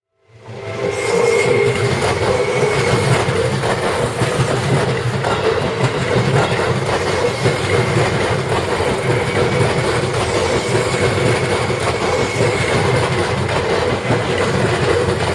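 Seibu Ikebukuro Line electric train passing close by at a railroad crossing: loud, steady running noise of wheels on rails. It cuts in suddenly a fraction of a second in and holds steady.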